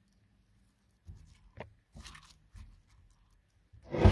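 Sticky clear slime mixed with coloured beads being pulled out of a stone mortar and squeezed by hand: a few short, soft sticky squelches, then a much louder crunchy squish near the end.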